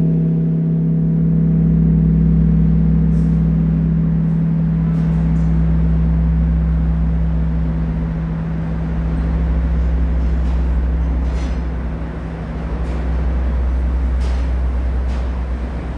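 Bosingak large Korean bronze temple bell (beomjong), cast by Seongjongsa, humming as it dies away after a strike. Its higher overtones fade within the first few seconds, leaving a deep steady hum that swells and fades in slow beats, about every four seconds.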